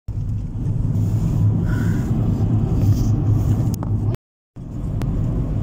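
Steady low rumble of a moving car heard from inside the cabin: engine and tyre noise while driving on a highway. It drops out to silence for a moment about four seconds in.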